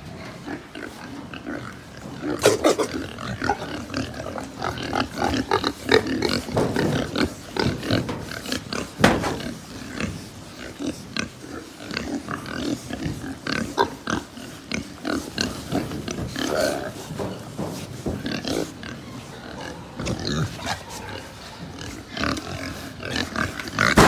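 A pen of young pigs grunting and calling, many short calls overlapping without a break, with a few louder, sharper cries among them.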